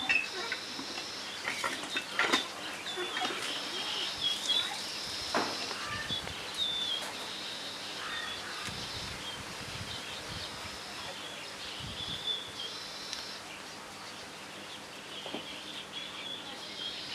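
Small birds chirping over and over in short, high calls, with a few sharp clicks or knocks in the first few seconds.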